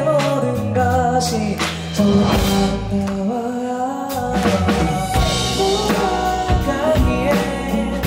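Live band music: a male voice singing a ballad melody into a microphone over electric guitar and a drum kit, with regular drum strokes.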